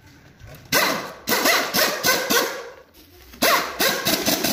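Pneumatic impact wrench hammering the wheel nuts onto a walking tractor's wheel hub. It comes in two rattling bursts, about two seconds and then about one second long.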